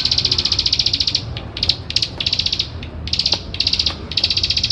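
Plain prinia (ciblek sawah) giving its rapid, ratchet-like clicking trill in a string of high-pitched bursts, each up to about a second long, separated by brief pauses.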